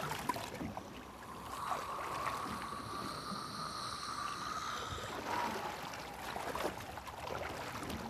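Sea water lapping and splashing at the surface around a swimmer, with many small quick splashes. A steady high tone sounds through the middle of it for a few seconds.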